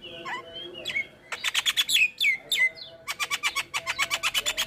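Javan myna singing. A few soft warbled notes come first, then loud sharp notes with falling tails about a second and a half in. In the second half comes a fast run of sharp chattering notes, about nine a second.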